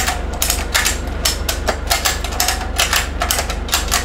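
Rapid metallic knocking and clinking, about four or five strikes a second, over the steady low hum of an idling engine.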